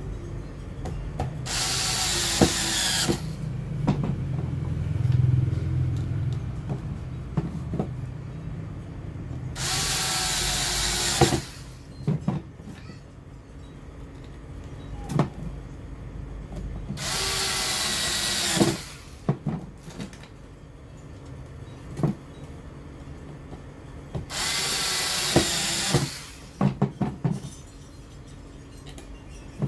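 Cordless drill driving screws in four separate bursts of about a second and a half each. The motor's pitch drops during each burst as the screw tightens, and short clicks follow most bursts.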